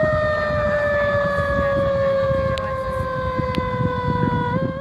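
A siren wailing: one long tone with overtones that slowly falls in pitch, then starts to rise again near the end, over a low rumble.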